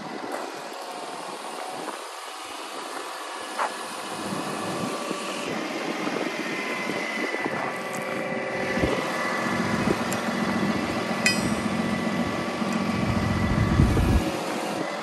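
A truck's 6.7L Cummins diesel engine running, with a steady whine over it that grows louder and deeper in the last few seconds. A single sharp click about two-thirds of the way through.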